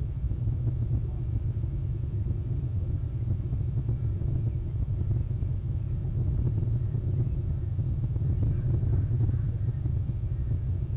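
Steady low outdoor rumble with a faint hiss, even throughout, with no distinct events standing out.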